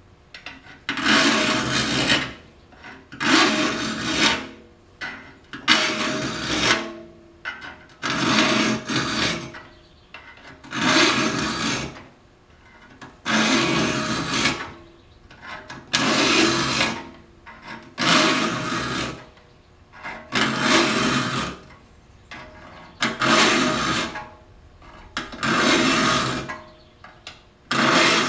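A saw file rasping across the teeth of a Disston D8 rip saw while it is sharpened: about a dozen even push strokes, roughly one every two seconds, with short quiet gaps between them as the file is lifted out for the return.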